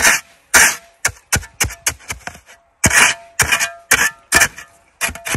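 Snow crunching in a quick series of short, sharp crunches, about two a second, with lighter clicks in between.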